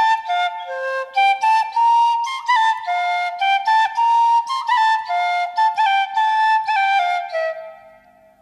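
Bansuri (Indian bamboo flute) playing a Moravian folk melody: short separate notes, some joined by quick little slides, fading away near the end.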